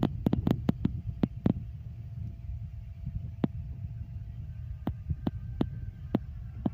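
Motorized wooden longboat under way at speed: a steady low throbbing rumble with a faint steady tone above it, broken by irregular sharp knocks.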